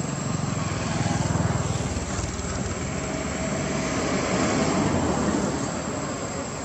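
Distant engine drone under a steady rushing noise, swelling about a second in and again near five seconds.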